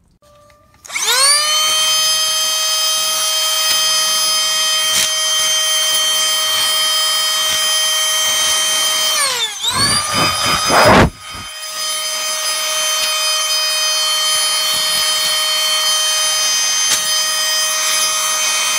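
Canless Air O2 Hurricane electric air duster's motor spinning up into a loud, steady high whine with several overtones. About nine seconds in it winds down and a loud rushing, rustling burst of air follows. The motor then spins up again and runs steadily.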